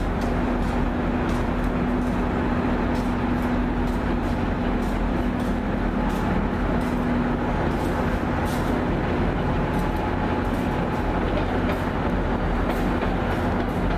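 A New Jersey Transit diesel locomotive running as it rolls past with its train: a steady engine drone with a constant low hum over the rumble of the wheels on the rails.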